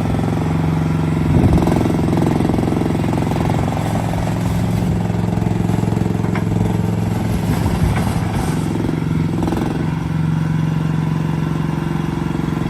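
Mini skid steer loader's 15-horsepower 420cc gas engine running steadily, its note shifting briefly about a second and a half in and again around eight seconds.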